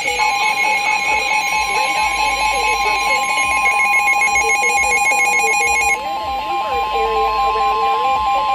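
NOAA Weather Radio warning alarm tone: a single steady high tone that comes on at the very start and holds, the signal that a warning, here a tornado warning, is about to be read. A second, pulsing tone a little lower and some music sound under it.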